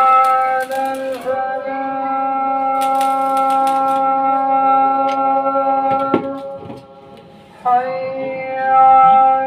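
A handheld electric power tool's motor whining at one steady pitch, with gritty bursts near the start and about three seconds in. It runs down about six seconds in and starts up again with a rising whine near the end.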